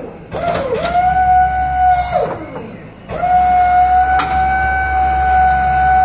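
Hiab truck-mounted crane's hydraulics whining under load as it lifts a slung pallet, the whine gliding up in pitch as it comes on. It runs for about two seconds, drops away, then comes back about three seconds in and holds steady, with a single sharp click a second later.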